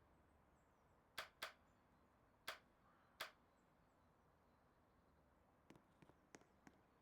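Near silence, broken by four sharp clicks in the first half and a quick run of fainter ticks near the end.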